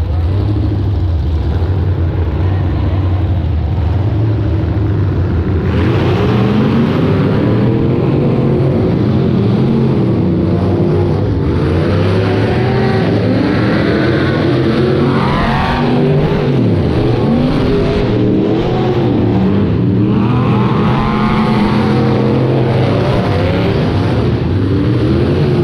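Several demolition derby cars' engines running and revving together, their pitches rising and falling. The sound grows louder and fuller about six seconds in.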